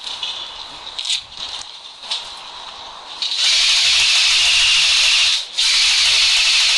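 A loud, even, scratchy rushing noise that starts about halfway through, breaks off for a moment, then resumes.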